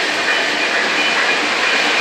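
O gauge model train running on three-rail track, giving a steady, even rolling noise of wheels and motor.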